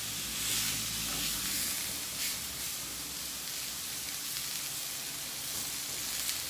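Two steaks sizzling in a hot skillet as they sear, a steady high hiss with a few sharp spits.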